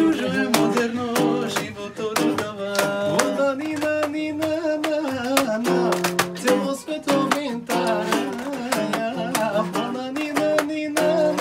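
A small guitar strummed in a steady rhythm, with a man singing a melody over it.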